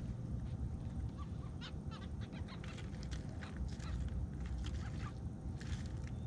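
Birds calling in short, scattered notes over a steady low rumble.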